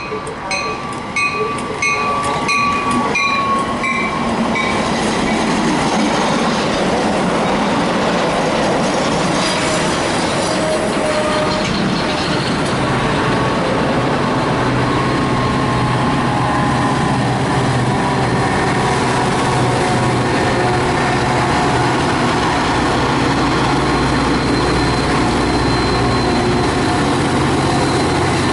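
A train passing close by: the rush and rumble of its wheels on the rails builds over the first few seconds, then holds steady and loud. A series of short high dings, about two a second, sounds over the first few seconds.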